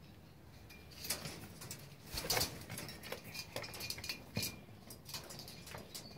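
Pigeons moving about on a metal and wire-mesh cage top: an irregular run of clicks and taps from their feet and landings, loudest about two seconds in.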